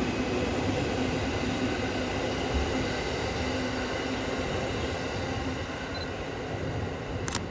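Train of an EF81 electric locomotive hauling E231 series cars rolling past, a steady rumble of wheels on rail with faint squeal tones, slowly fading. A sharp click near the end.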